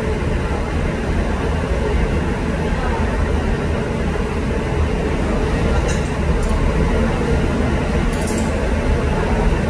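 Steady low rumble of restaurant room noise, with a few light clinks of tableware about six and eight seconds in.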